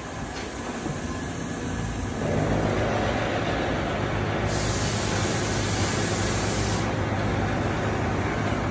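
Steady hum and rushing noise of running machinery that gets a little louder about two seconds in. A higher hiss joins from about four and a half seconds to about seven seconds.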